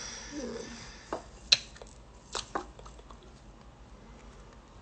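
A few short, light clicks and taps in a quiet room, scattered through the first half, over low background noise.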